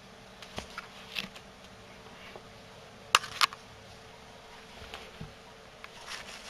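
Scuffling and scratching of a Siamese cat wrestling with a hand on a carpeted cat tree, close to the microphone, with two sharp knocks about a third of a second apart around three seconds in.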